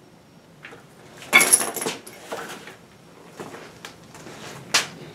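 Small master-cylinder parts being handled on a workbench: light clicks and rustling, with a louder rustle about a second and a half in and a sharp click near the end.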